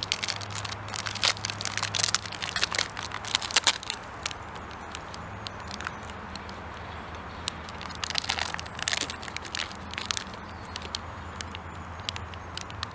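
Foil protein-bar wrapper crinkling in bursts as it is torn open and peeled back, thickest in the first four seconds and again about eight seconds in, with a campfire crackling sparsely in the gaps.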